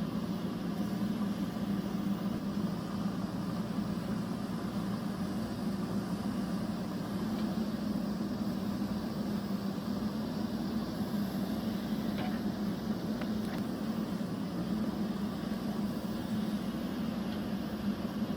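JCB backhoe loader's diesel engine running steadily, a continuous low drone with no change in pace.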